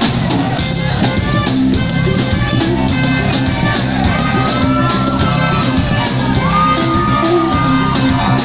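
Live band playing: violin over electric guitar, bass guitar and drum kit, with a steady beat and two long held high notes in the second half.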